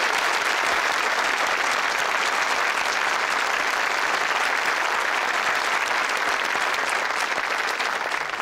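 Studio audience applauding, a steady wash of many hands clapping that eases slightly near the end.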